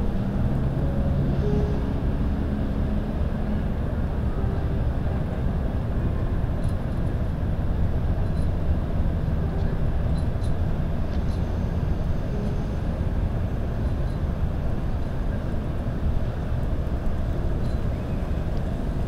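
Steady low rumble of outdoor ambience, the hum of distant vehicles and machinery, with a few faint music notes fading out in the first couple of seconds.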